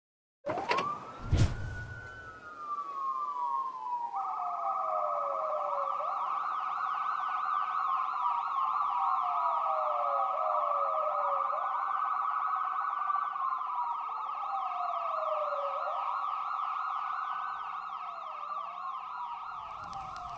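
Several police sirens wailing together, their pitch rising and then slowly falling over and over, with a faster warbling siren joining about four seconds in. A sharp thump comes about a second in.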